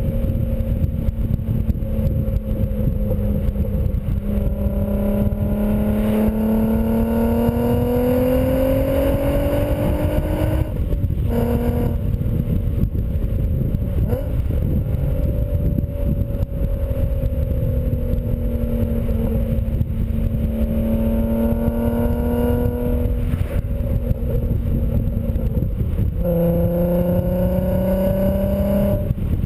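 2004 VW R32's 3.2-litre VR6 heard through a BlueFlame non-resonated cat-back exhaust while driving. The exhaust note climbs in pitch under acceleration, drops at a gear change about eleven seconds in, holds steadier, then climbs again near the end. Heavy wind rumble on the outside-mounted microphone runs underneath.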